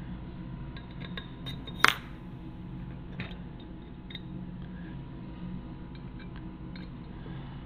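Scattered light metallic clicks of wire spokes being fitted into a motorcycle wheel hub, with one sharp, louder clink about two seconds in, over a steady low hum.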